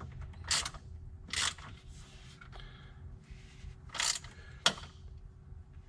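A 10mm socket ratchet clicking in short strokes, four brief bursts, as a bolt and nut are tightened down.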